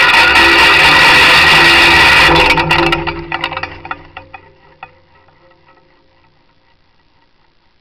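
Cablecam trolley's pulley running fast down the cable, a loud whirring rattle over a steady hum. It stops about three seconds in as the camera comes to rest at the bottom of the line, followed by a few faint clicks.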